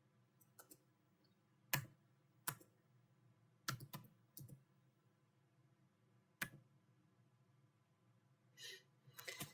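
Faint, scattered clicks of a computer keyboard being typed on, one or two keys at a time with pauses between. Near the end comes a quick cluster of clicks.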